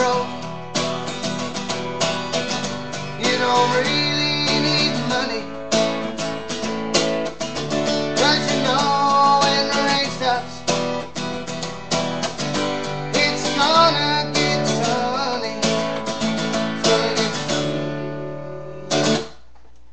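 Acoustic guitar strummed through a song's closing bars. It thins out near the end, then one last strum rings just before the playing stops.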